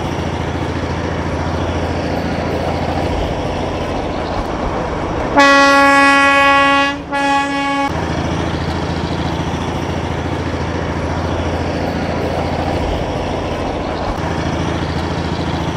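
Darjeeling Himalayan Railway toy train running along the track, heard from an open coach window, with a steady running noise and low hum. About five seconds in, the locomotive sounds its horn: one long blast, then a shorter second one right after.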